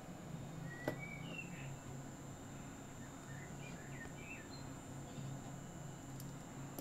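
Faint birds chirping in the background over a steady low hum, with one light sharp click about a second in.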